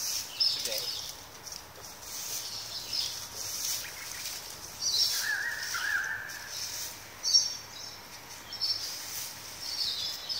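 Small birds chirping in short high bursts every second or two, with a lower pair of chirps about five seconds in.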